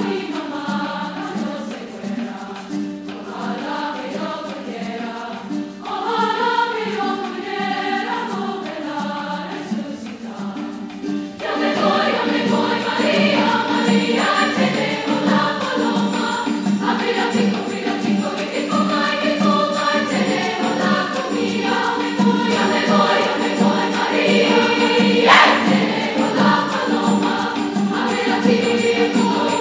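Large treble choir singing with piano and guitar accompaniment, the voices growing fuller and louder about a third of the way in. A single cymbal crash sounds near the end.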